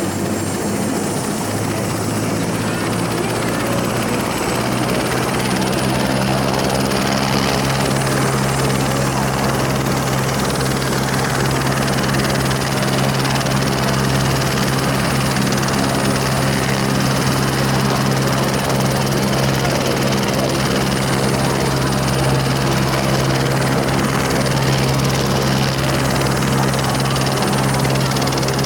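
Helicopter running steadily: a loud, even low hum of rotor and engine with a thin high whine above it. The hum strengthens over the first few seconds, then holds.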